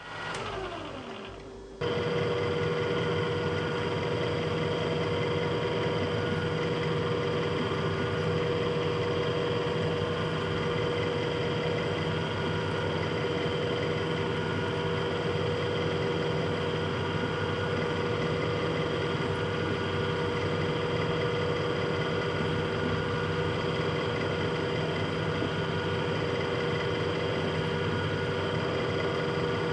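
Bridgeport milling machine's spindle driving a Dorian right-angle attachment, running steadily with a whine of several even tones from its bevel gears while a twist drill bores a side hole. The steady running starts abruptly about two seconds in.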